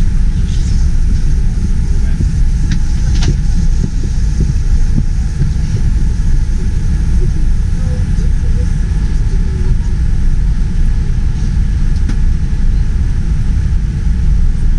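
Steady low rumble of a vehicle in motion, heard from inside, with a few faint clicks.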